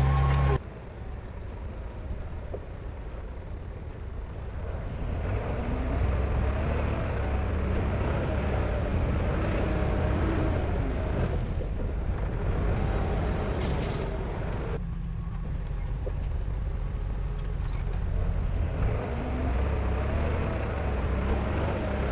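Heavy diesel engine of a construction machine running under load, a steady low rumble. It grows louder a few seconds in and eases off briefly in the middle.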